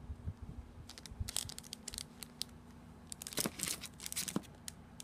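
Crinkling and rustling of plastic craft-supply packaging being handled: a scatter of short crackles and clicks, thickest a little past halfway, with a few soft handling thumps near the start.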